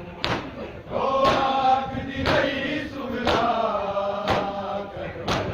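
Group of men chanting a noha in unison while doing matam, striking their chests together about once a second in a steady rhythm.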